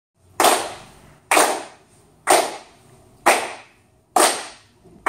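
A group of people clapping hands together in unison to a steady beat: six claps, about one a second.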